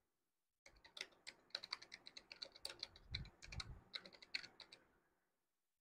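Faint computer keyboard typing: a quick run of keystrokes for about four seconds, then it stops.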